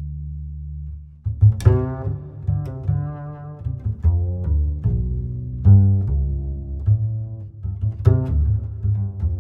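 Background music: a low held bass note fades, then from about a second in a run of pitched notes plays over a steady low bass line. A sharp accent hit comes about a second and a half in and again near the end.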